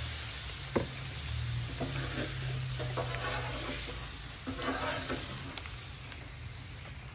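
Metal spatula scraping across the hot steel top of a Blackstone griddle amid steady sizzling, working off soy glaze that has reduced too far. A sharp clank comes a little under a second in, and the scrapes come twice, around two to three seconds in and again near five seconds.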